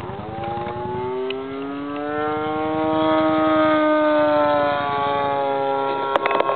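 34cc gas engine of an RC Katana aerobatic plane, its note rising in pitch through a dive and then easing down as the plane pulls out and flies level. There are a couple of sharp clicks about six seconds in.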